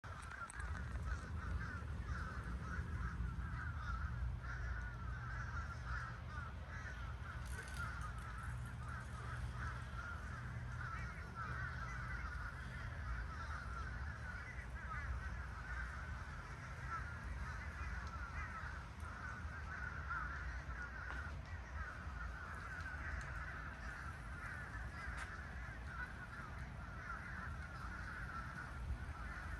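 A large flock of birds calling all at once, a dense, unbroken chatter of many overlapping calls, with a steady low rumble underneath.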